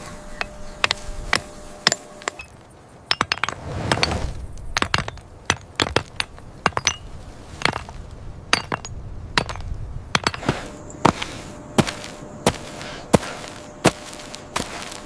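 An irregular run of sharp knocks and clinks, two or three a second, some with a brief ring.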